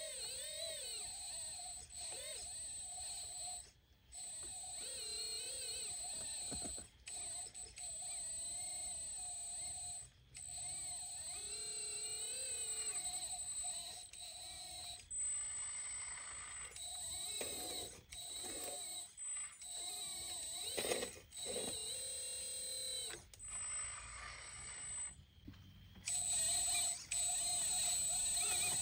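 A 1/14 scale hydraulic RC excavator working: a steady high electric whine from its pump and motors, with pitches that waver up and down as the boom and bucket move. The sound breaks off briefly several times.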